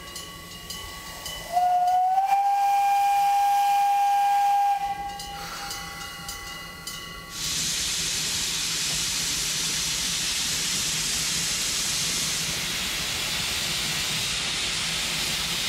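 Steam whistle of the Iron Horse, a 1909 American-built steam locomotive, sounding one steady blast of about three seconds. It starts about a second and a half in with a slight upward slide in pitch, then fades. About seven seconds in, a loud steady hiss of steam blowing from the cylinder cocks beside the driving wheels begins and carries on.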